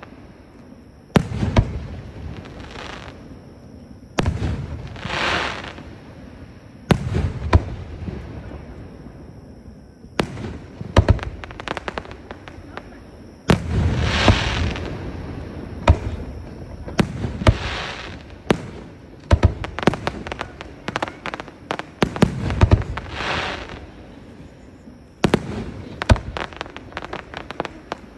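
Aerial fireworks display: repeated booms and sharp cracks of bursting shells, some followed by rumbling and crackling tails, with rapid volleys of pops around the middle and near the end.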